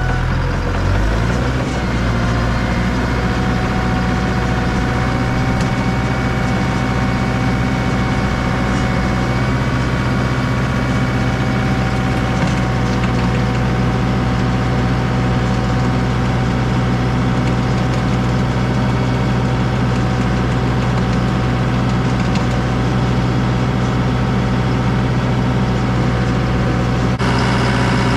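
Farm machine engine running steadily, its speed shifting about a second and a half in and again near the end.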